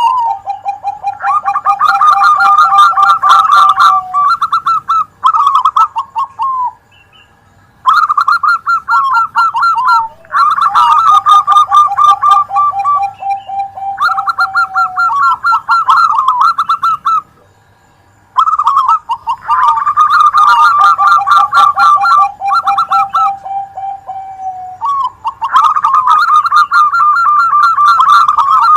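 Zebra doves (perkutut) cooing: several birds' rapid, staccato cooing phrases overlap one another, with short pauses about seven and eighteen seconds in.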